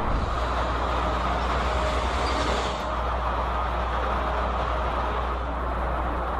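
Steady low engine rumble with no sudden events.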